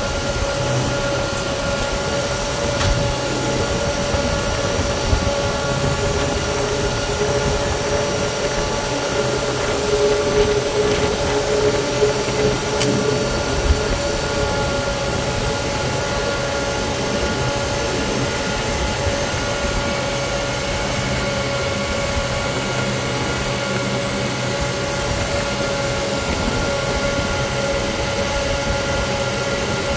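Steady whine and rushing hum of the KC-135R's four CFM56 (F108) turbofan engines running on the ground, heard inside the cockpit with a few constant tones. An extra whine swells up and fades out around the middle, along with a few light clicks.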